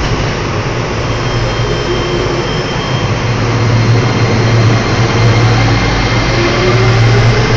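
Uijeongbu LRT train, a rubber-tyred automated light-metro car, pulling out of the station and running past close by: a loud, steady rushing noise over a low hum, with a rising motor whine near the end.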